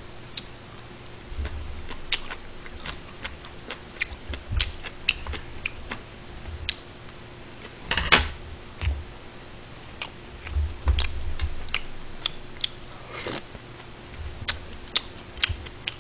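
Eating at a table: chopsticks and a metal spoon clicking at irregular intervals against the side-dish plates, rice bowl and stew pot, with one sharper clack about eight seconds in and occasional dull low thumps.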